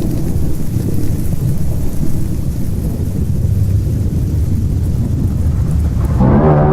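Deep, continuous rumbling like distant thunder in a horror ambience soundtrack. About six seconds in, a low pitched drone with many overtones comes in, like a monster's groan.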